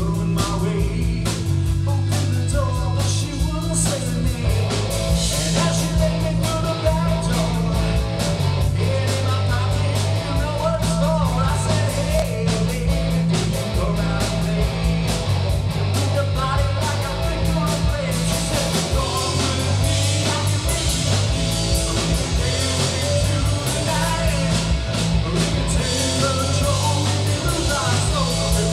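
Live rock band playing: a male singer over bass guitar, electric guitar and drum kit, recorded directly off the mixing desk.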